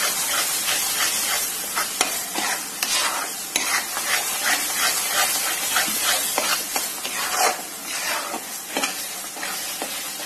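Thick onion-tomato masala paste sizzling in oil in a metal pan while a spatula stirs and scrapes through it: a steady hissing sizzle with short, irregular scraping strokes a few times a second, as the spices are cooked into the paste.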